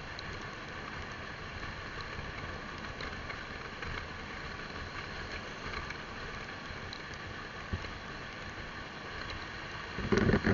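A motorcycle riding along, its engine running with steady wind and road noise. The noise grows louder in the last half second.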